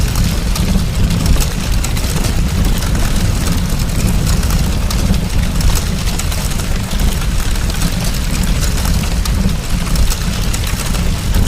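A large fire burning, with a steady low rumble under dense, continuous crackling.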